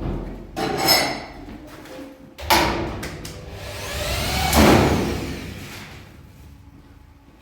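Knocks and scraping from hand installation work: a sharp knock about two and a half seconds in, then a swelling scrape that rises and falls in pitch and dies away.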